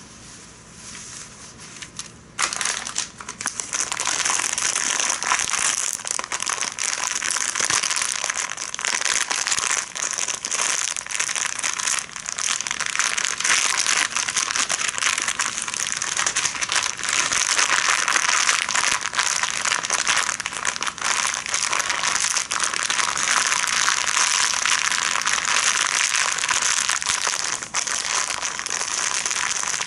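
A towel rubbing and scratching against the microphone, a loud, dense crackly rustle full of tiny clicks that starts about two seconds in.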